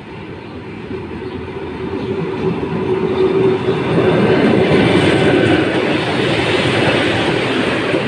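ЭП2Д electric train approaching along the platform and rolling past close by. Its noise grows louder over the first four seconds, then holds steady as the cars go by, with a steady whine under it early on.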